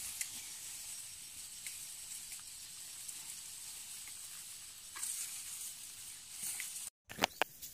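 Field ambience: a steady high hiss with a thin high whine and a few faint clicks, cutting out for a moment near the end.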